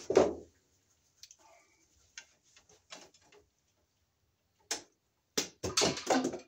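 Wire strippers and copper wire handled at a steel breaker panel: two louder knocks at the start, a few light ticks, then a burst of sharp clicks and snips near the end as the strippers work the white neutral wire.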